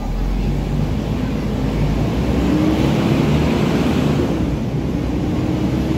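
Volvo B12BLEA articulated bus pulling away from a stop: engine and loud radiator fan running, growing louder over the first three seconds, with a steady humming tone coming in about two seconds in.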